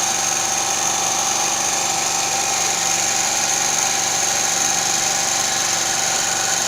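Small petrol generator running steadily on LPG cooking gas through a dual-fuel gas carburetor, its engine note even and unchanging, with a high steady whine over it.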